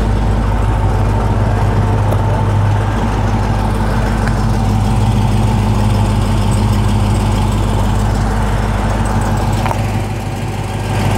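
2018 Dodge Charger SRT Hellcat's supercharged 6.2-litre Hemi V8 idling steadily, heard from outside the car beside the front fender.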